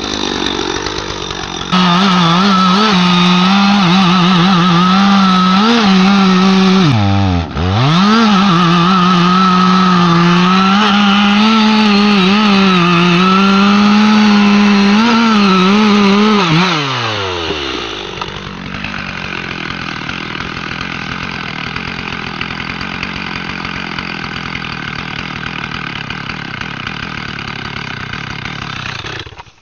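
Two-stroke chainsaw at full throttle cutting into a large tree trunk, its engine note steady apart from a brief dip about a quarter of the way in. A little past halfway the revs fall away, and a quieter steady running sound follows until it stops suddenly near the end.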